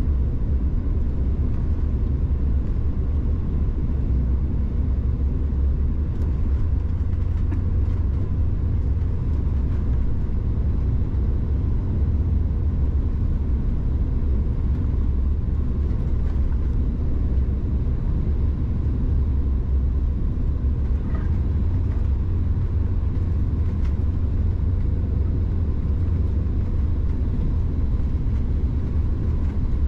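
Steady low rumble of cabin noise inside a Bombardier CRJ-700 regional jet on final approach, from the twin rear-mounted engines and the air rushing past the fuselage. The level holds even throughout.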